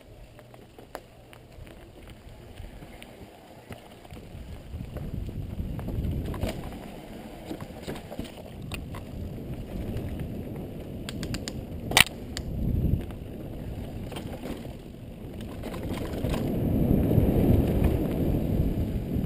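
Specialized Demo 8.1 downhill mountain bike riding fast over a dirt forest trail, heard from a helmet camera. A low rumble of tyres and wind grows louder as the bike gains speed and is loudest near the end. Rattling clicks from the bike run through it, with one sharp clack about twelve seconds in.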